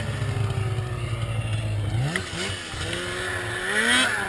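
Snowmobile engine running steadily, then revving up about two seconds in and again near the end.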